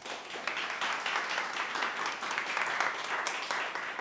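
A small audience applauding: many hands clapping together, steady throughout.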